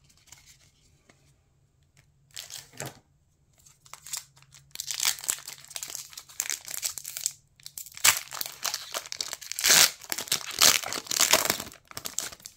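Foil wrapper of a Pokémon booster pack crinkling and tearing as it is ripped open and the cards are slid out. The rustling sets in about four seconds in and is loudest near the end.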